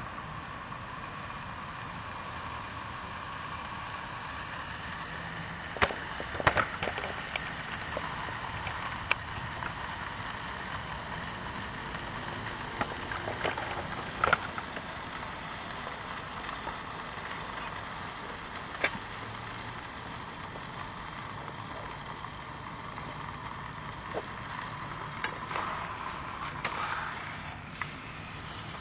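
Wood gas stove burning under a wide pan of heating water: a steady hiss with scattered sharp crackles and pops, and a short cluster of louder knocks near the end.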